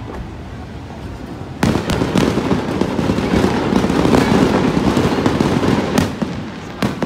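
Aerial fireworks shells bursting overhead. A sudden loud volley starts about a second and a half in and runs on as a dense string of bangs and crackles, with a few sharper single bangs near the end.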